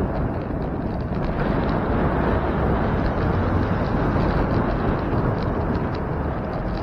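Steady low rushing and rumbling of wind buffeting the microphone on a moving bicycle, mixed with road noise.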